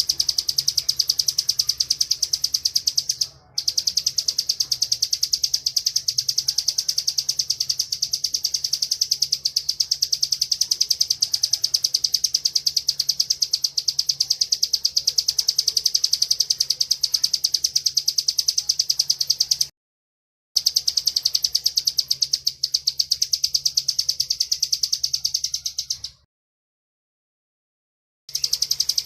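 Ciblek (bar-winged prinia) singing "ngebren": a long, fast run of rapidly repeated high chattering notes, breaking off briefly a couple of times and pausing for about two seconds near the end.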